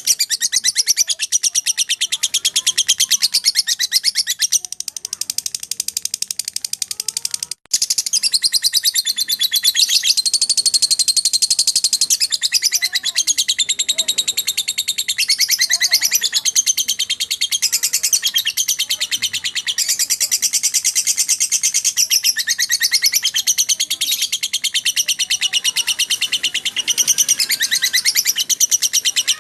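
Lovebird ngekek: a long, unbroken, rapid high-pitched chattering trill, the non-stop 'konslet' style, with a very short break a little past seven seconds in.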